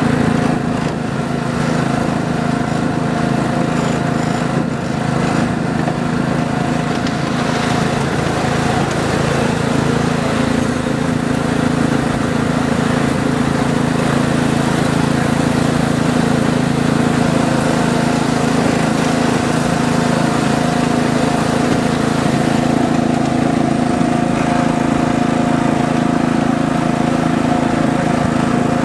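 A small engine running at a steady speed, a constant drone, heard from a ride-on miniature railway train as it travels along the track.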